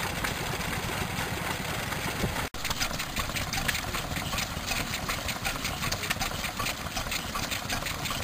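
Vintage Crossley stationary engines running steadily. One runs, then after a brief break about two and a half seconds in a second one runs with a regular beat of sharp ticks.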